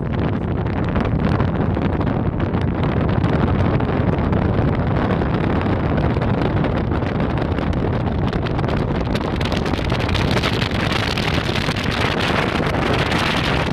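Wind buffeting the microphone over a tour boat's engine running steadily. The wind gusts harder about two-thirds of the way in.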